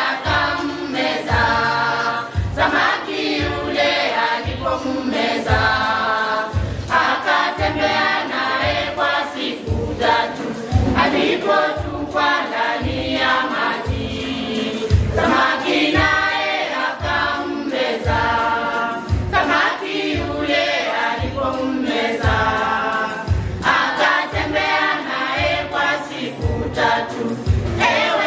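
Gospel choir singing over a steady drum beat.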